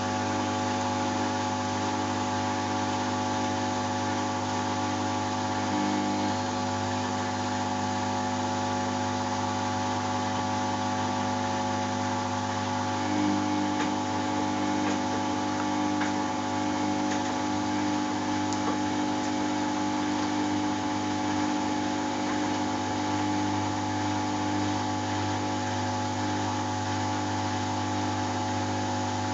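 Samsung WF70F5E0N4W front-loading washing machine running with a steady mechanical hum of several fixed tones, between the end of its main wash and its intermediate spin.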